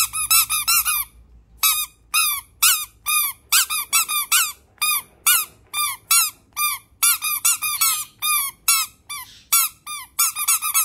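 Two small squeaky toys squeezed together in the hand, giving a long run of short squeaks that each rise and fall in pitch. They come quickly in the first second, then at about two a second.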